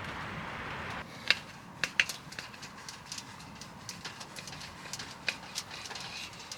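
Burning wood crackling, with irregular sharp pops, the loudest a little over a second in and at two seconds, after a steady hiss that stops about a second in.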